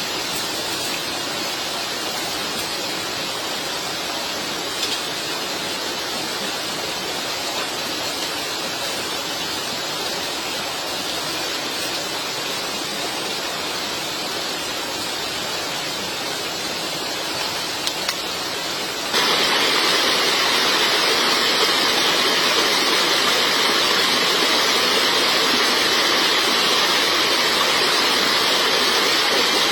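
Steady rushing water noise that jumps abruptly louder and brighter about nineteen seconds in.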